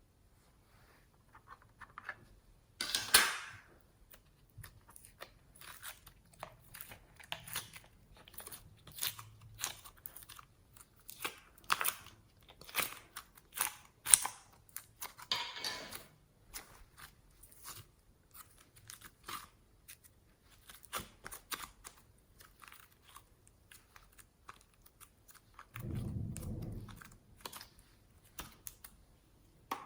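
Hands kneading and squeezing slime: an irregular run of sticky crackles and pops, with a deeper squelch lasting about a second near the end.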